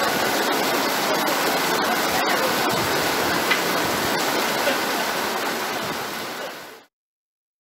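Heavy rain pelting a patio umbrella and splashing down around it: a steady downpour with a few sharp drip hits. It fades out and cuts to silence near the end.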